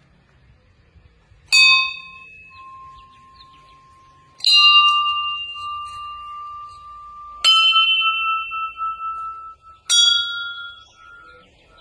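Temple bells struck one at a time, four strikes about every three seconds. Each is a different bell, a little higher in pitch than the last, and each rings on and fades before the next.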